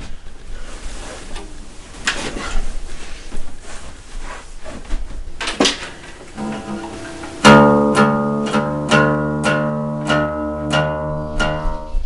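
Knocks and rustling as an acoustic guitar is handled, then the acoustic guitar strummed in steady chords, about two strums a second, starting a little past halfway.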